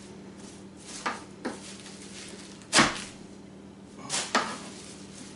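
A chef's knife knocking on a plastic cutting board as cilantro is cut, about five separate strikes with the loudest about three seconds in, over a faint steady low hum.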